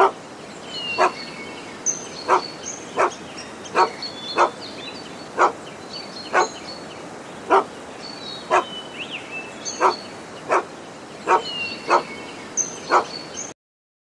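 Dog barking: single sharp barks at an uneven pace of about one a second, with faint high chirps in the background. The barking stops shortly before the end.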